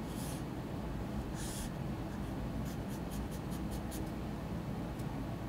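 Pen scratching on paper as small glyphs are drawn: two longer strokes in the first two seconds, then a quick run of about seven short strokes around three to four seconds in, and a single tick near the end. A steady low room rumble runs underneath.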